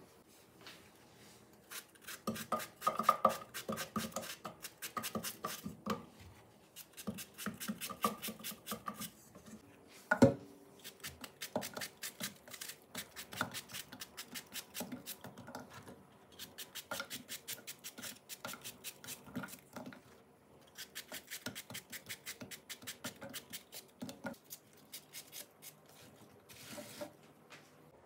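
Kitchen handling sounds of mixing in a bowl: quick runs of light clicks, scraping and rubbing, broken by short pauses, with one louder knock about ten seconds in.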